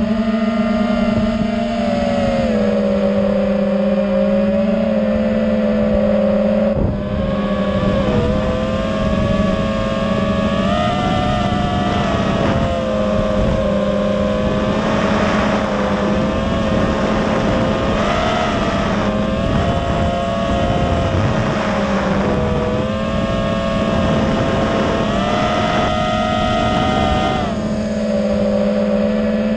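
FPV racing-quadcopter motors and propellers whining steadily, the pitch wavering up and down with throttle, over a rush of wind noise.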